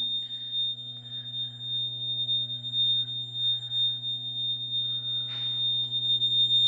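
A steady high-pitched electrical ringing tone over the low hum of a running fan, with a brief rustle a little past five seconds.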